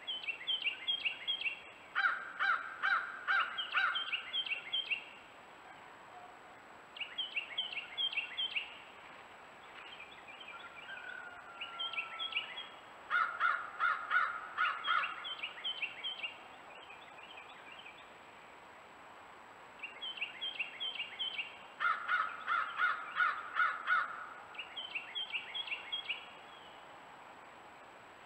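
Wild birds calling in runs of quick repeated notes every few seconds. Three times a louder, lower run of rapid notes comes in.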